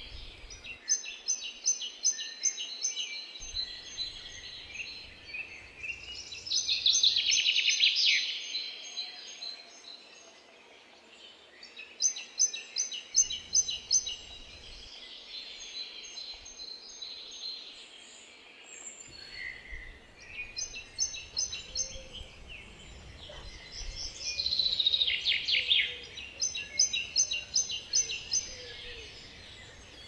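Small songbirds singing outdoors: about six phrases of rapid, high notes, each about two seconds long, a few seconds apart, two of them louder and ending in a quick falling run.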